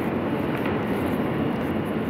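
Steady roar and rumble of a New York City subway train running, heard from inside the car.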